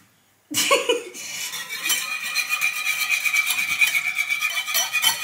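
Wire whisk beating egg and milk in a bowl: a fast, steady clatter of the wires against the bowl, starting about half a second in.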